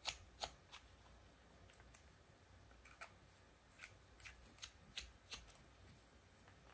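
Faint, irregular small clicks and ticks of a precision screwdriver backing out the tiny screws on the front of a small handheld device case, with the case shifting in the hands.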